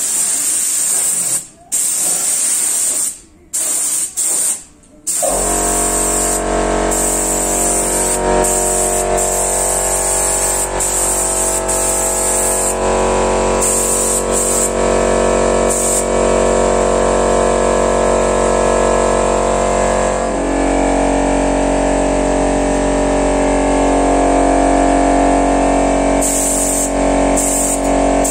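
Compressed-air spray gun with a 2.0 mm nozzle spraying 2K truck bed liner coating: a loud hiss in bursts as the trigger is pulled and released, with short breaks. About five seconds in, a steady hum with many tones joins and runs on under the hiss.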